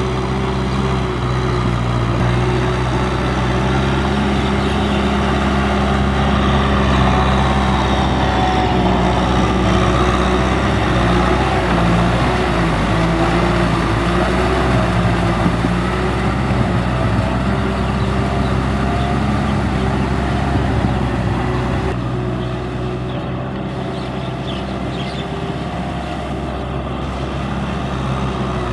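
Tractor diesel engine running, its pitch wavering up and down for several seconds in the middle. The sound changes abruptly about 22 s in and becomes somewhat quieter.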